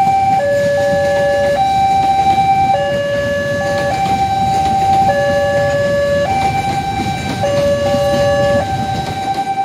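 Level-crossing warning bell sounding an electronic two-tone chime, alternating low and high notes about every second, over the low rumble of a passenger train's coaches rolling across the crossing.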